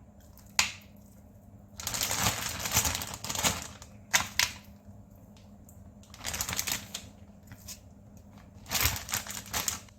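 Plastic zipper storage bag crinkling and rustling in three bursts, with a few sharp clicks between them, as it is handled and filled.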